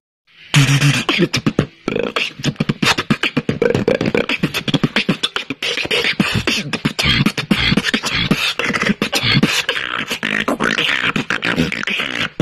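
Solo beatboxing: a fast, continuous run of mouth-made drum sounds, low thumps and sharp clicks, with a short break about two seconds in.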